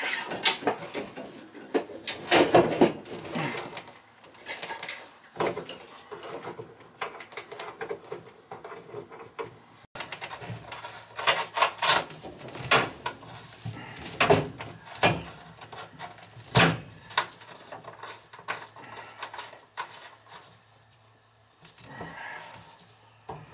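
Irregular knocks, clinks and scrapes of tools and metal fittings as a new two-handle faucet is fastened to a laundry tub from underneath.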